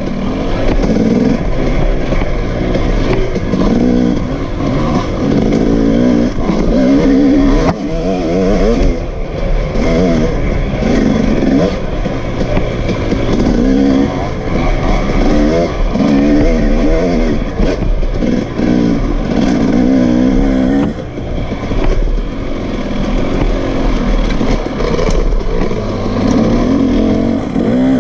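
KTM two-stroke dirt bike engine heard from on the bike, revving up and easing off over and over as the rider works the throttle along a twisting trail.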